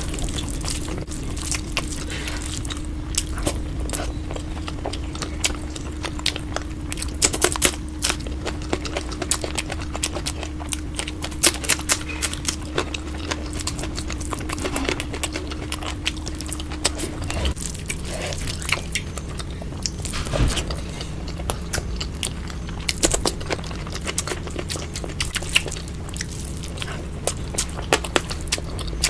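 Close-miked mouth sounds of eating, played at double speed: rapid, irregular wet clicks of chewing and biting with occasional crunches, over a low steady hum that drops in pitch a little past halfway.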